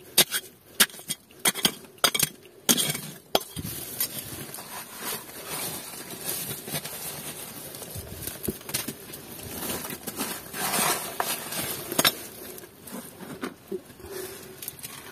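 Sharp clinking taps, irregular and several a second for about the first three seconds, then a steady hiss with scattered faint clicks.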